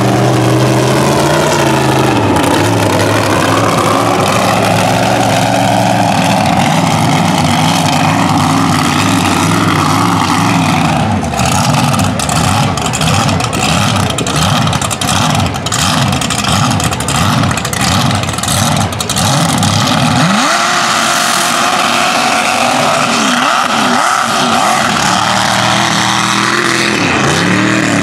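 Mega mud truck's engine revving hard and running flat out down a dirt short course, its pitch climbing and dropping with the throttle. Through the middle of the run a rapid series of sharp cracks rides over the engine.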